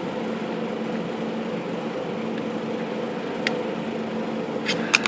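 Steady mechanical hum of shop machinery, with a sharp metallic click about three and a half seconds in and a quick run of clicks near the end as a small screwdriver works the Skyriter typewriter's bent sheet-metal back panel.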